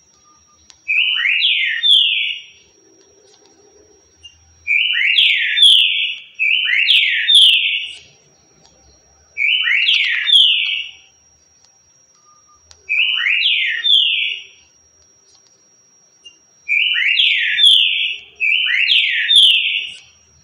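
Green-winged saltator (trinca-ferro) singing its 'currucutil' song type. It repeats a short phrase of a few quick, slurred whistled notes seven times, with pauses of one to three seconds between phrases.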